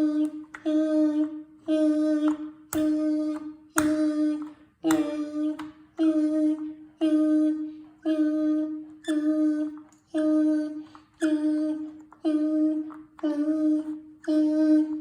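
Smoke alarm sounding a low, buzzy beep over and over, about once a second, each beep starting sharply and fading away, with a truck-like sound. A few sharp clicks come three to five seconds in.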